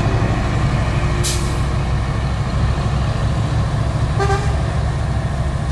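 Mitsubishi Fuso Super Great heavy truck's diesel engine pulling hard up a steep grade as the truck passes close by. A short burst of air hiss comes about a second in, and a brief toot about four seconds in.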